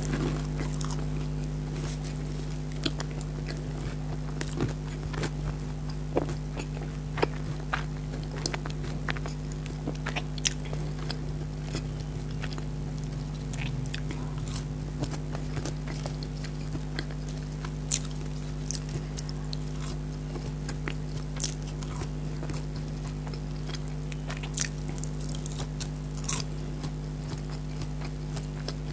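A person chewing and biting food close to the microphone, with scattered crunches and wet mouth clicks. A few are louder than the rest, over a steady low hum.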